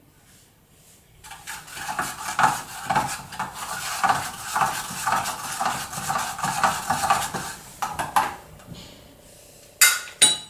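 A watered-down chalk paint whitewash being stirred briskly in a small container, the stirrer scraping and clinking against the sides about three times a second for several seconds. A few sharp knocks follow near the end.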